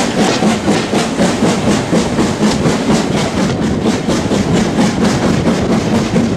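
Steam train on the move heard from an open carriage window: the steady rush of wind and running noise, with a quick regular beat, about four a second, from the exhaust of the LMS Black 5 steam locomotive working the train.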